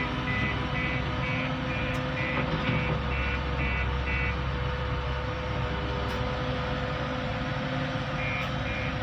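Reversing alarm of a JCB skid-steer loader beeping about twice a second, stopping about four seconds in and starting again near the end, over a steady low machinery hum.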